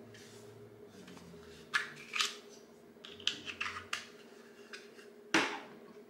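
A plastic remote control handled and set down on a table: several sharp clicks and crinkles, then one louder knock near the end.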